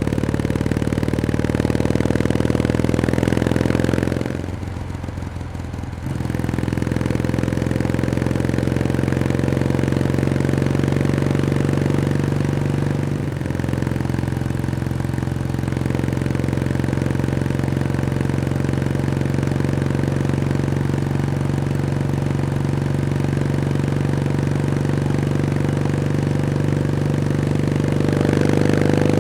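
Kawasaki W1S's vertical-twin engine running steadily under way. Its note drops away for about two seconds about four seconds in, then comes back and holds steady.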